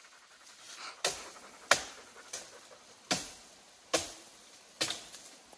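A person breathing hard in short, regular pants while hiking, about one every three-quarters of a second.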